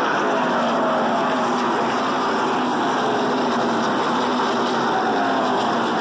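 A pack of NASCAR Truck Series race trucks with V8 engines running at racing speed, several engine notes overlapping and sliding down in pitch.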